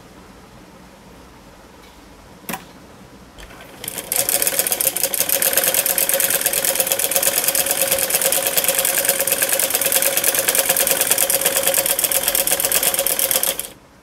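Domestic sewing machine stitching a side seam of a palazzo pant. It runs fast and evenly for about ten seconds, starting about four seconds in and stopping abruptly just before the end. There is a single click shortly before it starts.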